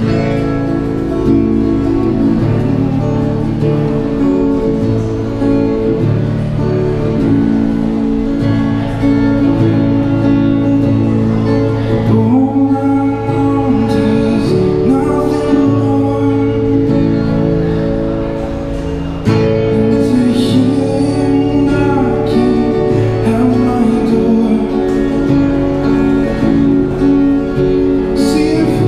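Yamaha acoustic guitar strummed through a small battery amplifier, with a man singing over it from about halfway through. The music steps up in loudness about two-thirds of the way in.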